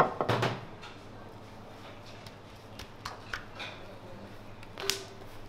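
Thin katmer dough slapped and patted by gloved hands on an oiled stone counter: a loud slap at the start with a quick run of slaps after it, then a few soft pats and one more sharp slap near the end.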